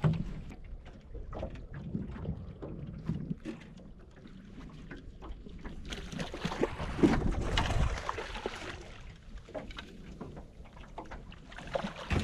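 Wind and water noise on a small boat, with scattered light knocks and clicks, busier about six to eight seconds in.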